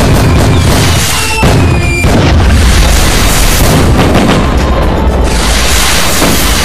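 A dense, unbroken barrage of firecrackers and fireworks booms. A whistling firework glides down in pitch about a second in.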